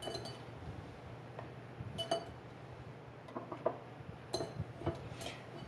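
Glass mason jars and a plastic canning funnel clinking and tapping as sliced mushrooms are packed into the jars: a handful of light, ringing clinks, one near the start, one about two seconds in and one about four seconds in, with softer taps between.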